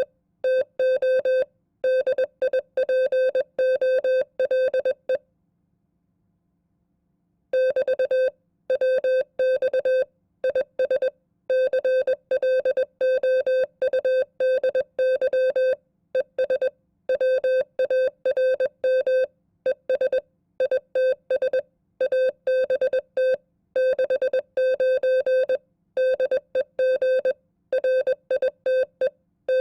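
Morse code sent as a keyed single tone at 20 words per minute: dots and dashes of a sample amateur-radio QSO, as once given in an FCC code exam. The keying pauses for about two seconds about five seconds in, then resumes.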